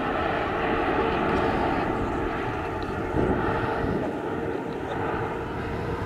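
Sukhoi Superjet 100 airliner in flight, its twin PowerJet SaM146 turbofan engines making a steady rumble with a faint steady hum running through it.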